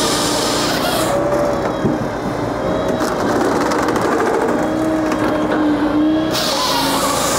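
Japa 395 firewood processor running off a tractor's PTO, with a steady drone of engine and hydraulics. The saw chain rasps through an ash log during the first second and starts cutting again about six seconds in. In between, the cutting stops while split pieces are pushed through the splitting wedge.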